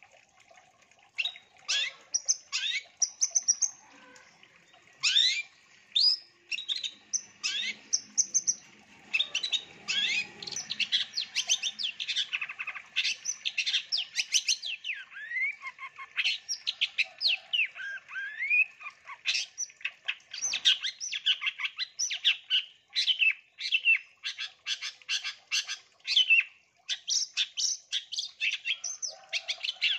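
Long-tailed shrike (cendet) singing a long, fast, varied song of short chirps and quick rising and falling whistled notes, in dense runs broken by brief pauses.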